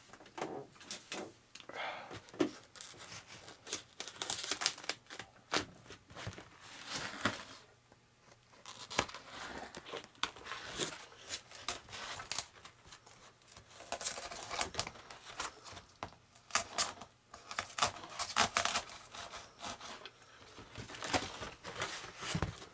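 Fiber tape and melted, burnt foam being torn and peeled by hand from a fire-damaged foam flying wing. Irregular ripping and crackling in short bursts, with brief pauses.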